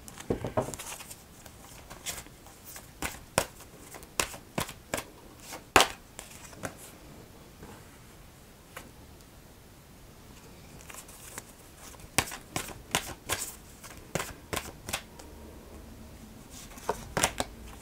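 A deck of oracle cards being shuffled and handled: a run of sharp card clicks in two busy spells with a quieter pause between, and a few more clicks near the end.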